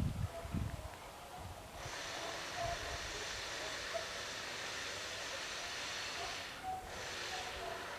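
A steady hiss sets in about two seconds in, breaks off briefly near the end, then returns. Faint short chirps sound beneath it.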